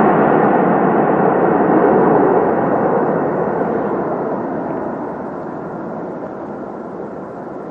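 Airplane engine noise, a steady rushing sound that fades away gradually.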